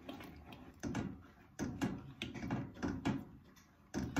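A spoon stirring thickening gravy in a stainless steel saucepan, scraping and knocking against the pot in a string of irregular knocks, the loudest near the end.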